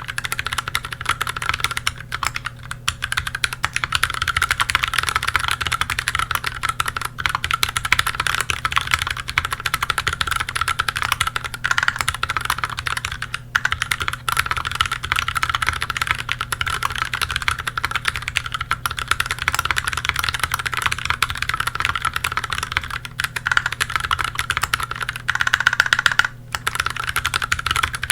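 Fast, continuous typing on a KBDFans Tofu HHKB mechanical keyboard with lubed Gateron Milky Brown tactile switches, an integrated aluminium plate and GMK keycaps: a dense stream of key clacks, with a short break near the end.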